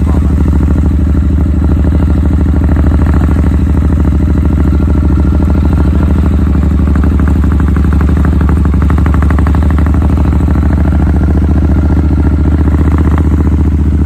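A motor vehicle's engine running steadily, a loud low hum with an even pulsing throughout.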